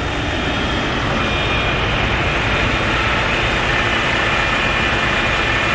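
Heavy diesel engine of the truck-mounted crane running steadily and loud, swelling a little in the first second.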